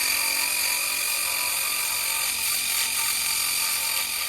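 A small high-speed electric motor running steadily with a high whine, cutting off near the end.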